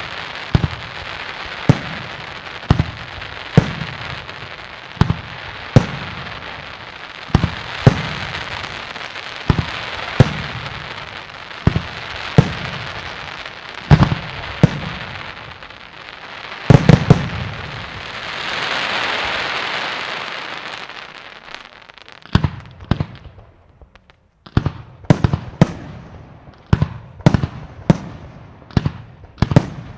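Jorgé aerial fireworks bursting, with sharp bangs about once a second over a steady crackling hiss. About halfway through comes a loud double bang, then a swelling crackle, a short lull, and quicker bangs about two a second near the end.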